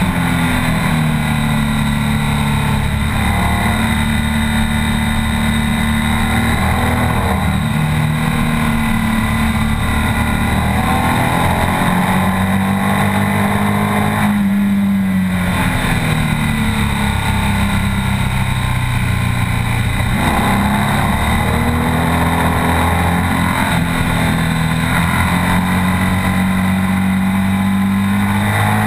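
BMW R 1200 S's air/oil-cooled boxer twin engine pulling hard on track, its revs climbing through the gears and dropping back at each shift, with a longer drop as the throttle is closed about halfway through.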